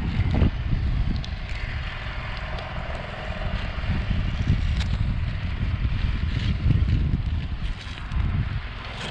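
Wind buffeting the microphone in an uneven low rumble, with faint scraping and a few light clicks of asphalt shingles being handled.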